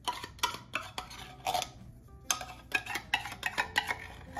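A metal spoon scraping and clinking against a container in a quick run of short strokes, as pizza sauce is spooned out and spread onto the dough.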